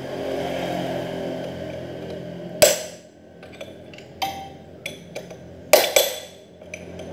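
Steel hand tools knocking and clinking against a Yamaha F1ZR motorcycle's exposed clutch hub during disassembly. There is one sharp metal strike about two and a half seconds in, lighter clinks after it, and two more sharp strikes close together near the end.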